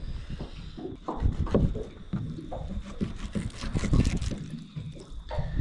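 Knife scraping and cutting through a snapper fillet on a wooden cutting board, with wet handling of the fish, in uneven bursts. Water lapping against the boat runs underneath.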